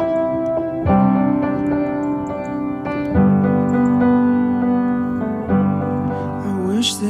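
Background music: sustained electric-piano chords, a new chord struck about every two seconds, with a sliding note coming in near the end.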